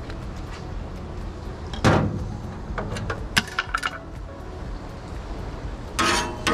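Knocks and clinks of cooking gear at a Blackstone flat-top griddle: a loud knock about two seconds in as the glass olive-oil bottle is set down, then a few light metallic clinks. Near the end a metal spatula starts scraping across the oiled steel griddle top, over a steady low rumble.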